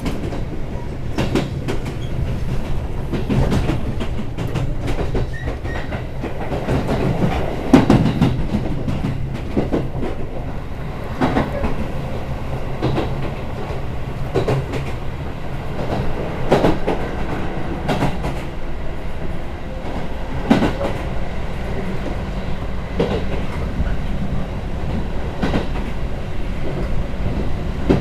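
Chichibu Railway express train running between stations, heard inside the passenger car: a steady low rumble with irregular clacks and knocks as the wheels pass over rail joints.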